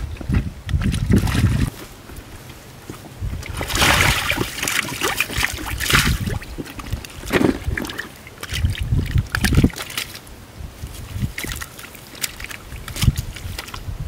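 Catfish thrashing in a shallow muddy puddle, with irregular splashing and sloshing as they are handled in the water. The busiest splashing is about four to six seconds in.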